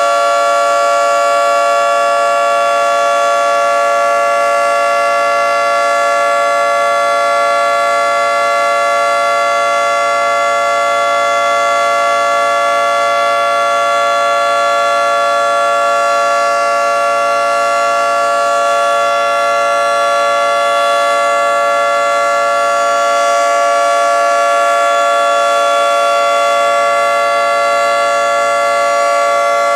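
Federal Signal 2T22 dual-tone electromechanical outdoor warning siren sounding a loud, steady two-note chord, held without rising or falling. It is the steady alert signal given during a routine monthly siren test.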